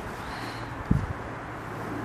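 Steady outdoor background noise with a low hum, and a single soft thump just under a second in.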